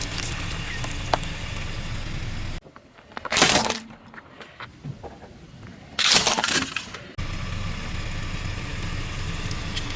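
Car tyres crushing objects: steady engine and tyre noise with scattered small cracks, broken by two loud crunches about three seconds apart, each lasting about half a second.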